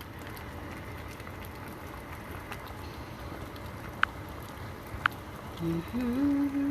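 A pot of jackfruit cooking in brown sugar syrup, simmering steadily. There are two sharp clicks about four and five seconds in, and near the end a voice starts humming a few held notes.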